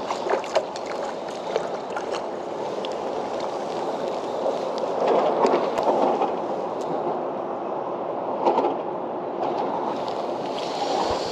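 Water sloshing and lapping around a kayak, with scattered light clicks and knocks in the first few seconds from handling the landing net and the fish.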